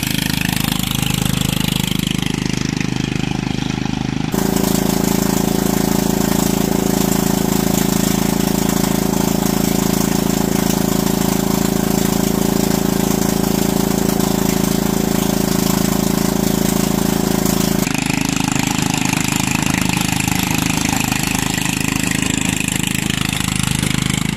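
Craftsman lawn tractor's engine running steadily, heard in three edited clips that change abruptly at about four and eighteen seconds in. In the middle clip the rear wheels are raised on a stand and spin freely on a new chain-driven axle.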